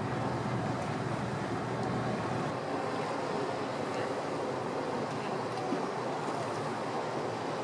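Steady rush of wind and water noise out on the water, with no distinct calls, blows or clicks standing out.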